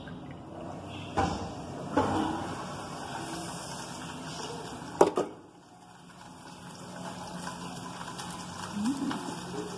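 Kitchen tap running into the sink while things are handled in it, with a few sharp knocks about one and two seconds in and the loudest about five seconds in.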